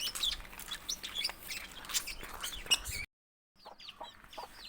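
Many small cage birds chirping and twittering in quick, overlapping short calls. The sound cuts out completely for about half a second near three seconds in, then chirping resumes.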